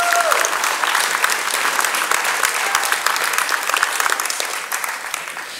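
Audience applauding steadily as a graduate crosses the stage, the clapping thinning out near the end. One voice in the crowd gives a single held cheer right at the start.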